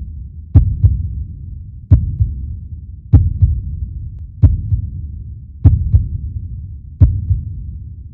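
Heartbeat sound effect for a horror soundtrack: a double thump about every 1.3 seconds, six times, over a continuous low rumble.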